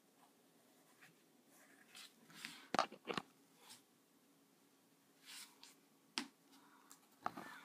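Micron fine-liner pen scratching in short strokes on Bristol card while inking, with two louder sharp knocks about three seconds in.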